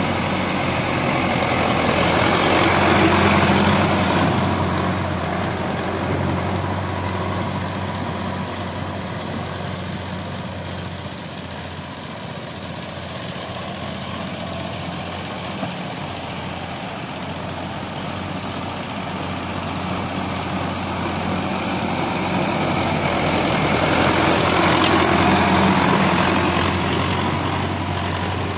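Sonalika DI 750 tractor's diesel engine running steadily under load as it pulls a rotavator through flooded mud. It is louder about three seconds in and again near the end as the tractor comes close, fainter in the middle while it works the far side of the field.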